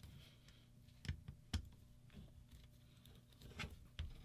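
Faint handling noise of a metal paintball marker being turned and fitted together by hand: a few sharp clicks and taps of metal parts, over a steady low electrical hum.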